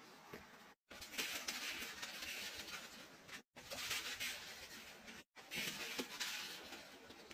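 Laundry powder being scooped and poured into an empty stainless-steel washer drum, a soft hissing rustle of falling granules. It breaks off abruptly for a moment three times.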